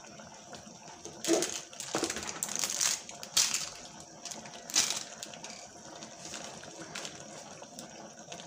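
Ridge gourd and chana dal curry bubbling in an open pressure cooker, with a few short, louder rushes of noise in the first five seconds.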